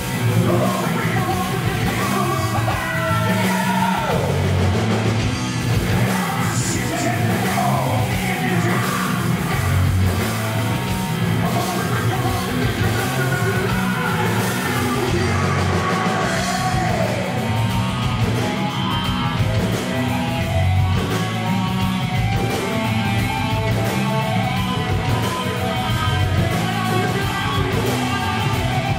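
Live rock band playing: a man singing over electric guitars and drums. The cymbals come in harder about halfway through.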